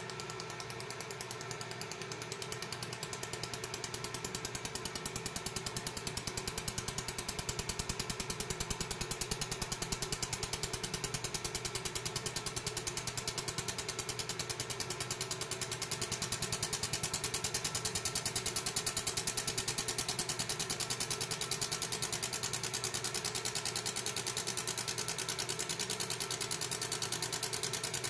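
A 30-watt fiber laser engraving ceramic tile: a steady, very rapid buzzing crackle as the pulsed beam works the glaze, over a constant machine hum, growing a little louder over the first ten seconds.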